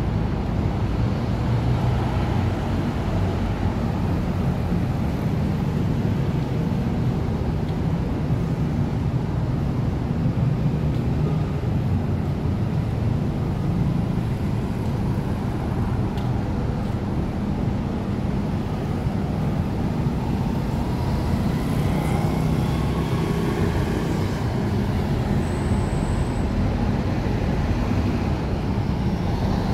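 Steady road traffic: car and bus engines running close by, a continuous low rumble.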